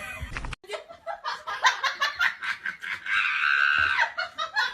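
Hearty laughter in quick bursts, about five a second, with a long held high-pitched stretch a little past the middle.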